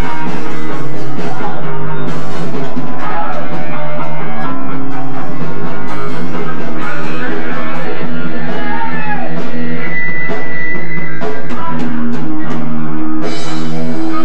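Rock band playing live, loud: electric guitars and a drum kit with frequent cymbal crashes.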